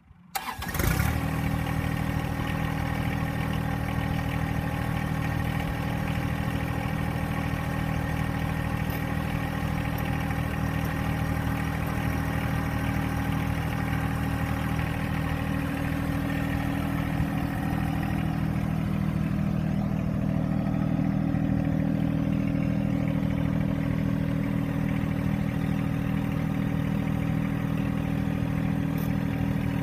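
John Deere 1025R compact tractor's three-cylinder diesel engine starting up about a second in, then running steadily. It grows slightly louder about twenty seconds in.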